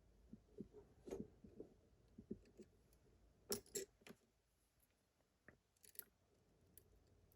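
Faint, scattered clicks and scrapes of lock-picking tools working in a Miwa magnetic cam lock, the sharpest pair about three and a half seconds in.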